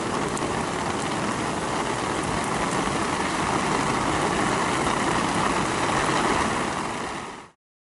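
Heavy rain falling steadily on wet sandy ground and grass, a dense, even hiss that cuts off abruptly near the end.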